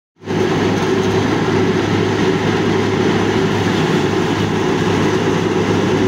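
Tractor-powered threshing machine running at full speed while threshing rice, a loud, steady mechanical din with a constant low hum.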